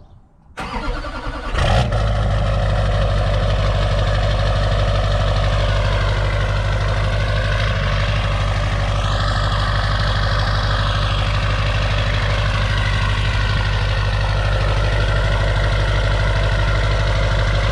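LB7 Duramax 6.6-litre V8 turbodiesel cranking briefly and starting about two seconds in, then idling steadily with a high turbo whistle over the diesel clatter. The whistle rises and falls once around the middle.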